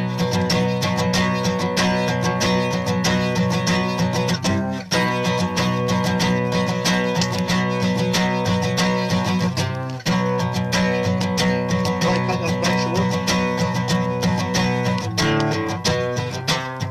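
Acoustic guitar strummed steadily, the chords changing about every five seconds.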